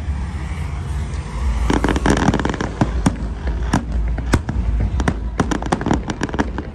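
Aerial fireworks shells bursting overhead: a dense spell of crackling starts about two seconds in, followed by a string of sharp bangs and pops.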